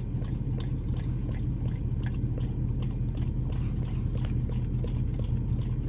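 A dog licking ice cream from a small plastic cup held in a hand: quick wet licks and smacks, a few a second. A steady low hum runs underneath.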